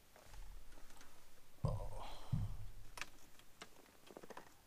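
Faint handling noise: a few small sharp clicks, with a brief low rumble about two seconds in.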